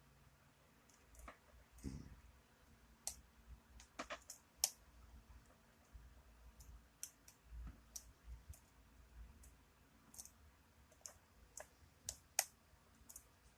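Faint, irregular clicks and scrapes of a lock pick working the pins of a lock cylinder under tension, with a sharper click near the end as a pin sets.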